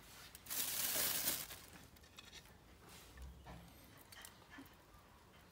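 A brief rustling scrape about half a second in, followed by faint clicks and small knocks, as hanging strips of dried smoked meat are handled and swung on their wire hooks.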